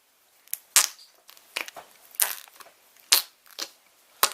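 A toy fart-noise canister giving a string of sharp, crackly pops: about ten short bursts at irregular intervals, the loudest four roughly a second apart.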